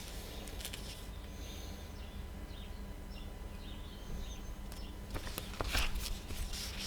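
Steady low background hum with faint bird chirps in the middle, and a few soft clicks or rustles near the end.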